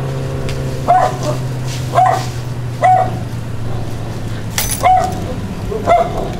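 A dog barking in short single barks, about one a second, over a steady low hum.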